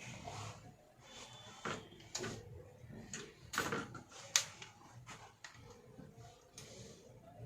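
Scattered clicks, knocks and short rustles of hands handling a hard disk drive and PC case parts, with one sharp click about four and a half seconds in.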